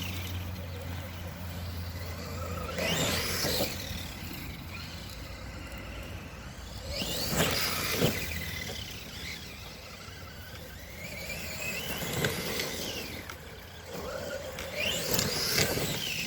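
Redcat Shredder RC monster truck's brushless electric motor whining, its pitch climbing and dropping with each burst of throttle, four times.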